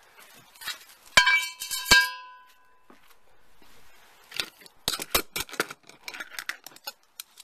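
Two sharp metal clanks about a second in and just before two seconds, each ringing on briefly, from steel parts knocking together, followed by a run of lighter clicks and rattles as metal pieces are handled.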